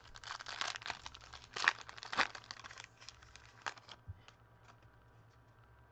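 A foil baseball-card pack wrapper being torn open and crinkled for about three seconds, with a few sharp clicks as the cards are handled. After that only faint ticks remain.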